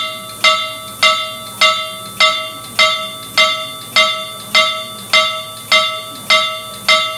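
Steam engine bell rung by its air-powered clapper on about 50 psi of air, striking steadily about twelve times, roughly 1.7 strokes a second, each stroke ringing and dying away before the next.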